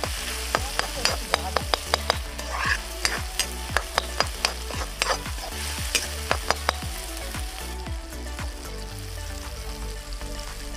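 A metal spatula clinking and scraping against a kadhai as chopped onions, tomatoes and green chillies are stirred while frying in hot oil, over a steady sizzle. The clinks come about three a second, then thin out after about seven seconds.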